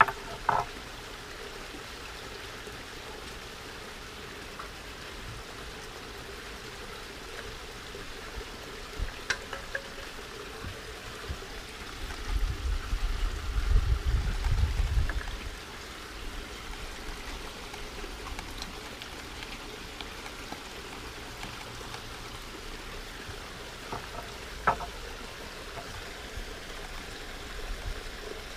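Steady trickle of running water, with a few light clicks of tools and stones against a glass bowl and a low rumble for a few seconds around the middle.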